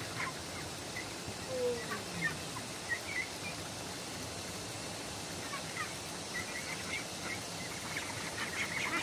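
Outdoor rural background with a steady hiss and scattered short, high bird chirps, plus one lower falling call about one and a half seconds in.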